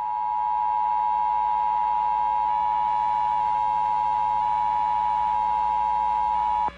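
Emergency Alert System attention signal: two steady tones (853 and 960 Hz) sounding together, loud and unbroken, the alert tone that heralds an emergency broadcast, here a required monthly test. It cuts off suddenly near the end, leaving a low hum.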